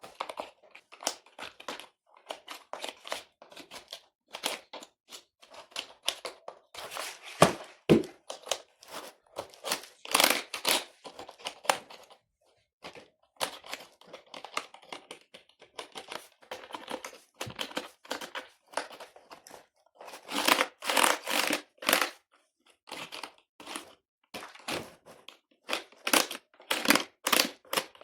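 Close-up handling and cleaning of a dirty computer keyboard: irregular plastic clicks and taps mixed with short bursts of rubbing and rustling, with louder scrubbing about a third of the way in and again about three quarters through.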